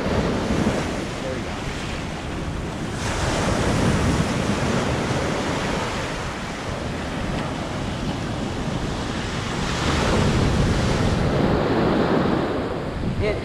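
Ocean surf washing onto a beach, with wind buffeting the microphone. The wash swells about three seconds in and again about ten seconds in.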